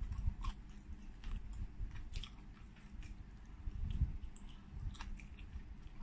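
Close-miked chewing of soft hot-pot food: wet mouth clicks and smacks at irregular intervals.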